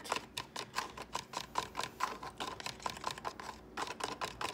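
A thin utensil stirring food colouring into mirror glaze in a plastic cup, clicking and scraping against the cup's sides in quick, even strokes, several a second.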